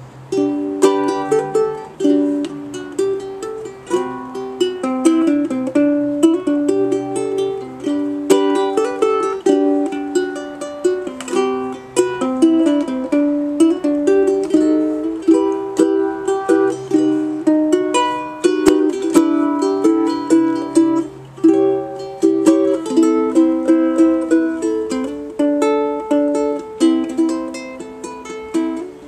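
Kamaka HF-3 tenor ukulele played solo: a plucked melody over chords, beginning about half a second in.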